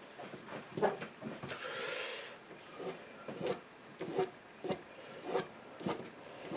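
A paintbrush dabbing and stroking on watercolour paper: a series of short scratchy dabs, one every half second or so, with one longer swishing stroke about a second and a half in.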